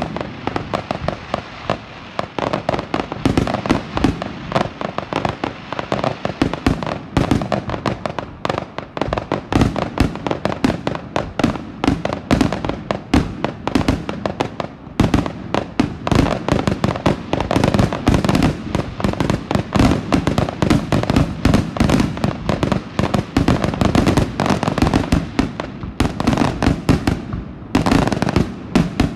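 Fireworks going off in a dense, unbroken barrage: rapid bangs and crackles, many a second, with heavy booms among them.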